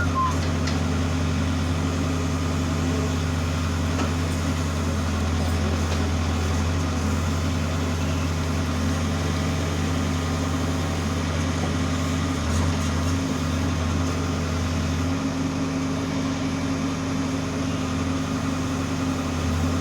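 Case 570T backhoe loader's diesel engine running steadily at low speed, with a slight change in its low note about three-quarters of the way through.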